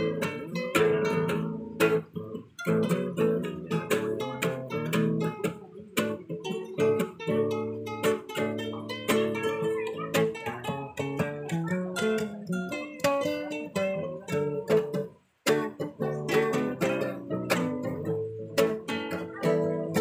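Two acoustic guitars playing together, strummed chords with picked notes, with a brief break about 15 seconds in.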